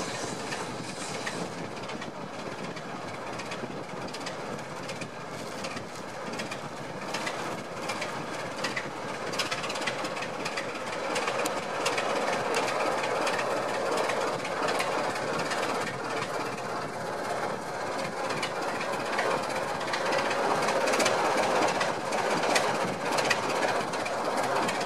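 Train moving slowly along the line, wheels clicking irregularly over the rail joints, growing gradually louder.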